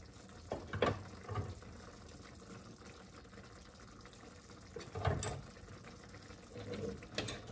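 Tomato and egg soup being stirred in a frying pan: a few short clinks and scrapes of the utensil against the pan, about a second in, around five seconds in and near the end, over a soft sloshing of liquid.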